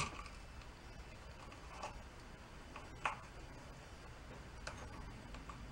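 Three or four faint, sharp clicks a second or more apart, from a small metal pick prying at the plastic tabs of a wire clamp on the engine.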